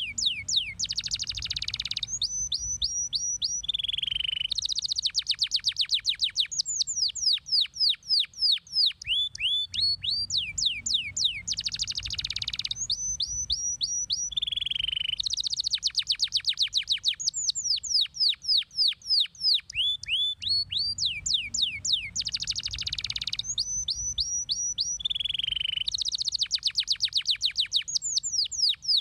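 Domestic canary singing: rapid rolls of sharp down-slurred whistled notes alternating with denser, harsher trills, the same sequence of phrases coming round about every ten seconds.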